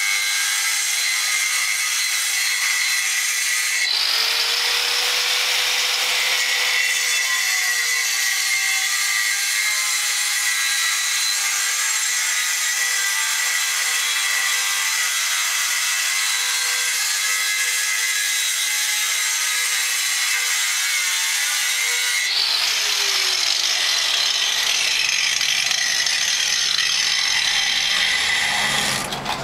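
Power wall chaser cutting a chase into a concrete wall: a steady high whine over a grinding hiss, whose pitch dips and recovers twice, about 4 seconds in and again about 22 seconds in.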